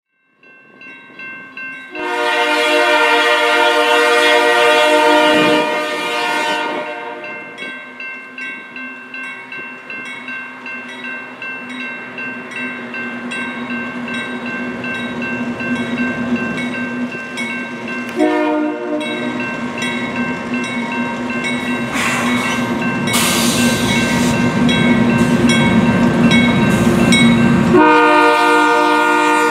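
A Union Pacific GE AC4400CW diesel locomotive sounds its horn at a grade crossing: a long blast from about 2 to 7 seconds, a short one about 18 seconds in, and another long blast starting near the end. Under the horn a crossing bell rings steadily, and the locomotive's engine and wheels grow louder as it nears and passes.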